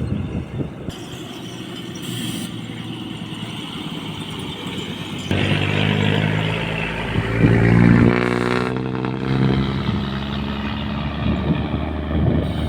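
A motor vehicle's engine running, starting about five seconds in, getting louder around eight seconds and then easing off, over a rough rustling background.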